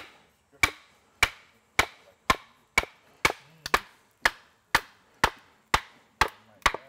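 Wooden club striking the back of a froe to split a length of wood: sharp wooden knocks in a steady rhythm of about two a second, some fourteen blows in all.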